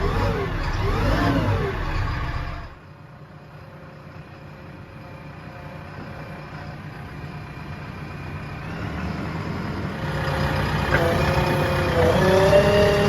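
Diesel engine of heavy earth-moving machinery, revving up and down under load. The sound drops abruptly about three seconds in to a quieter, steady running. It then builds again, and the engine revs hard near the end.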